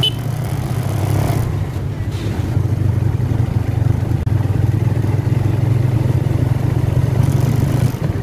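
Motorcycle engine running as it rides along at a steady pace, a steady low hum, with brief hissing near the start and again near the end.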